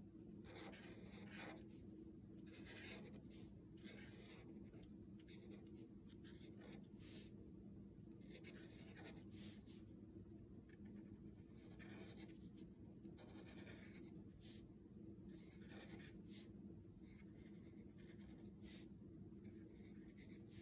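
Black Sharpie felt-tip marker drawing small circles and ovals on paper: a series of short, faint scratchy strokes at uneven intervals, over a low steady room hum.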